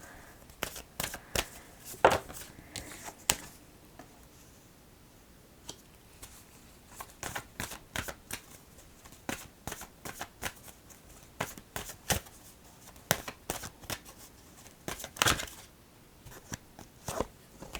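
Oracle cards being slid and tapped into line on a table: a scatter of light clicks and taps, irregular, with a pause of about two seconds near the start.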